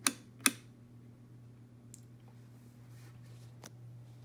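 Two sharp clicks about half a second apart from the switches and knobs of a B&K tube tester, then two faint ticks, over a steady low electrical hum.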